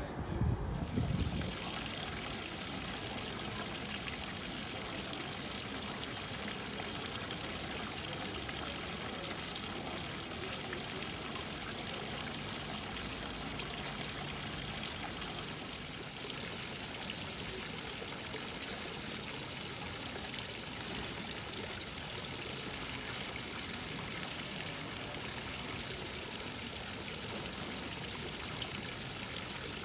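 Water running from the spouts of a granite street fountain and splashing steadily into its stone basin. A short low rumble sounds in the first second.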